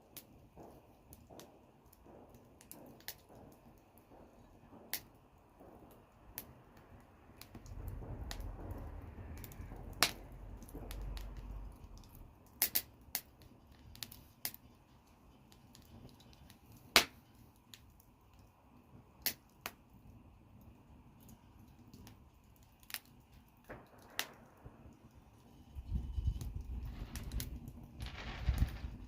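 Wood fire crackling, with irregular sharp pops every second or so. A low rumble swells twice, around a third of the way in and again near the end.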